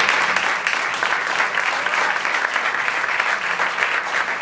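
Audience applauding after a stand-up punchline, many hands clapping in a dense, steady patter.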